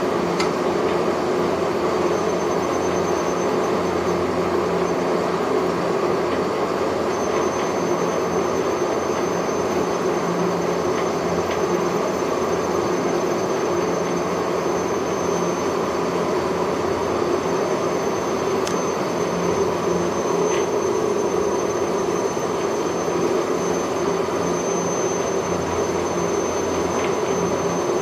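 Inclined-lift car running down its steep rail track, a steady rumbling run with a faint high whine joining about a quarter of the way in.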